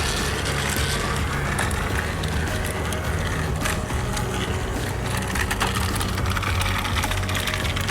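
Battery motor of a Trackmaster remote-control Thomas toy engine running steadily along plastic track, a continuous whir with occasional clicks.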